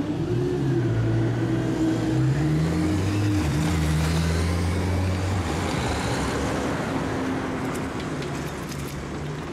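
Motorcycle engine pulling away and accelerating, its note rising in steps over the first few seconds, then fading into the steady sound of road traffic.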